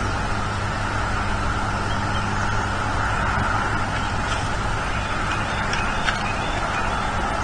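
Steady hiss of outdoor background noise picked up by the eagle nest camera's microphone, with a low electrical hum under it. A few faint ticks come about four to six seconds in, as the juvenile bald eagle flaps its wings on the nest sticks.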